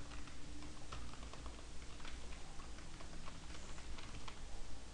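Computer keyboard typing: a run of short, irregular keystroke clicks.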